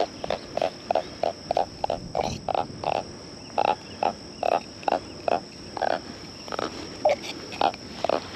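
Frogs croaking: a string of short calls, about two or three a second.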